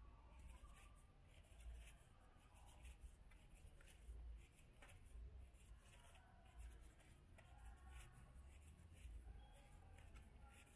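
Near silence with faint, irregular scratchy rustling and soft low rumbles.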